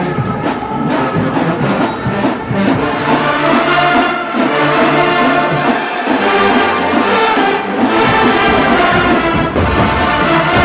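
HBCU marching band playing a field show: the brass section holds loud chords over marching drums.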